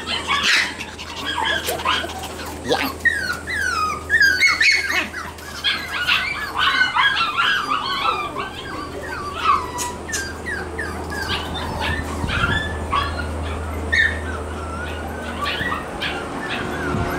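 Shiba Inu puppies whining and yipping in a rapid string of short, high-pitched cries that thin out in the last few seconds, over a steady low hum. The crying is typical of a pup wanting to go back to its mother.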